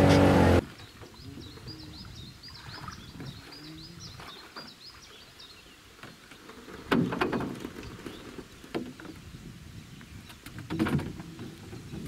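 A boat's outboard motor running at speed stops abruptly about half a second in. A small bird then gives a quick run of high chirps for about three seconds, followed by two loud thumps, about seven and eleven seconds in.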